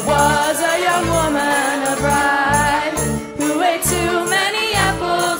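Live band music from a school ensemble, with a steady bass beat and jingling percussion.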